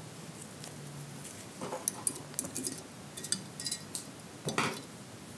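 Light metal clicks and clinks of valve collets being fitted into the groove of a valve stem on a Honda CD200 cylinder head, while a valve spring compressor holds the spring down; the clicks come irregularly, with a sharper one near the end.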